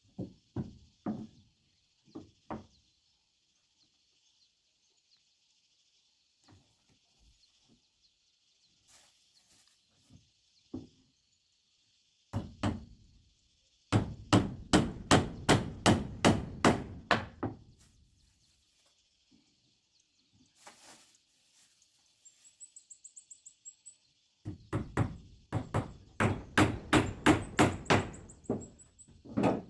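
Hammering on wood in bursts: a few scattered blows, then a fast run of about a dozen at roughly four a second, and another run of about ten near the end.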